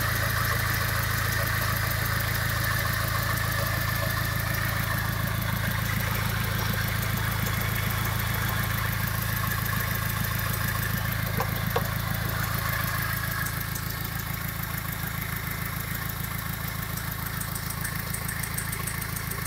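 A Citroen Berlingo's 2.0 HDi DW10TD four-cylinder diesel idling steadily with the oil filler cap off. There is one short click a little before the middle, and the sound is slightly fainter over the last third.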